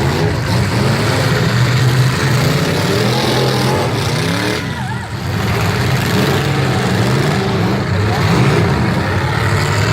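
Several demolition derby car engines running together and revving, their pitch climbing and dropping.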